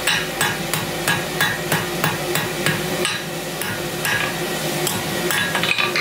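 Hand hammer striking red-hot steel bar stock on an anvil, about three blows a second, each with a short metallic ring; the blows space out after about three seconds.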